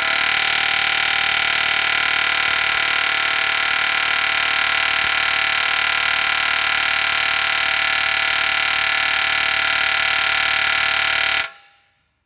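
Pneumatic air hammer running continuously, driving against a steel frame rivet on an M35A2 truck frame, then stopping suddenly near the end.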